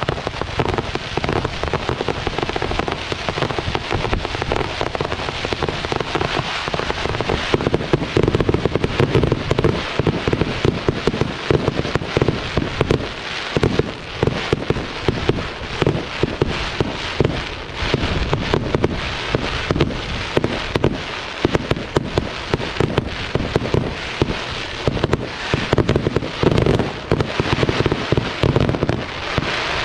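Fireworks display: a dense, unbroken stream of rapid crackling and popping bursts.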